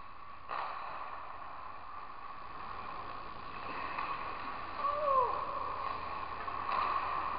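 Hockey rink sounds during warm-up: skates scraping and carving the ice, with a few sharp clacks of pucks and sticks. A short falling squeal comes about five seconds in.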